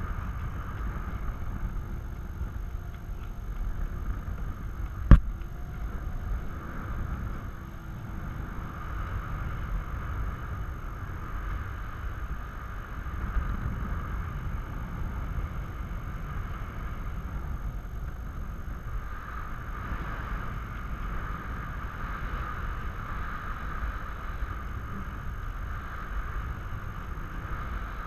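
Steady wind rushing over the microphone of a camera riding under a parasail in flight, with one sharp click about five seconds in.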